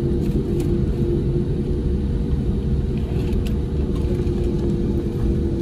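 Steady low rumble of a Boeing 787-9's cabin, with a constant hum under it and a few faint ticks.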